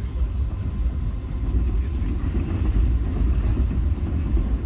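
Steady low rumble of a passenger train rolling along, heard from inside the car.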